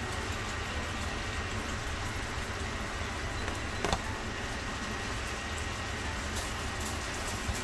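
Salmon steaks sizzling in oil in a frying pan over high heat: a steady hiss with a low hum underneath, and one light knock about four seconds in.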